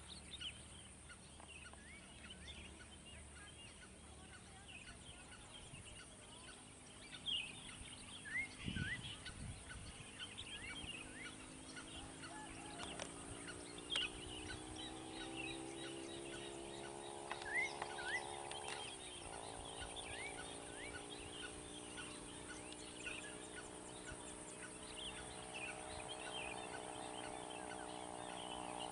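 Many small birds chirping and twittering in a chorus of short high calls. From about the middle, a low droning tone slowly rises in pitch, drops abruptly a few seconds later and returns near the end. There is a dull thump about a third of the way in.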